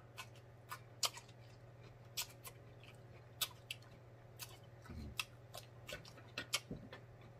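Close-up eating sounds: irregular sharp, wet clicks of lips and tongue smacking while chewing and licking fingers, with a soft low thump about five seconds in.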